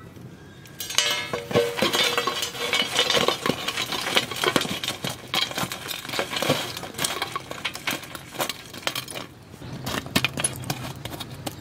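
Lumps of burning charcoal tipped onto an aluminium pot lid, clattering and clinking against the metal. The dense clatter starts about a second in and thins to scattered knocks near the end. The coals are heaped on the lid to give top heat for baking in the pot.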